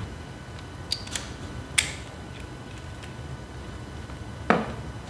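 Light clicks of small metal hardware being handled, a few in the first two seconds, then one sharper knock about four and a half seconds in, over a steady low hum.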